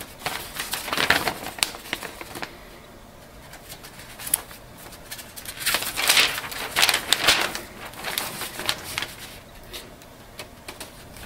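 A large folded paper sheet rustling and flapping as it is handled, turned over and unfolded, in several bursts with quieter stretches between.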